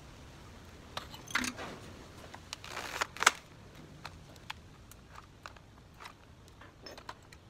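Handling noises while a corded electric drill is picked up and set against a motorcycle's steering head: a few sharp clicks about a second in, a short scraping rush just before three and a half seconds, then scattered light ticks. The drill motor is not heard running.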